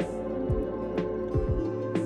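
Background music: held synth chords over a steady beat of deep falling kick-drum thumps and sharp clicks, about two beats a second.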